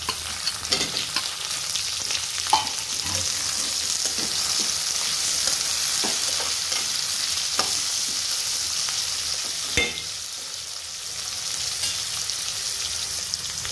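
Diced raw potatoes frying in hot oil in a steel kadai: a steady sizzle, with a metal spatula clicking and scraping against the pan now and then as they are stirred.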